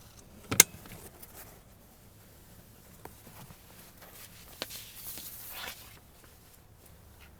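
Handling noises: a sharp knock about half a second in, then scattered light clicks and a stretch of rustling.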